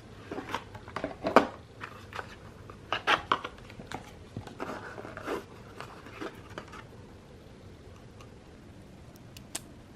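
Packaging being opened and handled by hand while unboxing a boxed facial beauty device: a string of irregular rustles, scrapes and sharp clicks through the first six or so seconds, then only faint handling.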